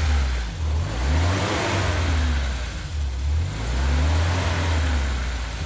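Off-road vehicle's engine revving up and falling back again and again, about three swells of throttle in a few seconds, as it is driven hard over rough ground.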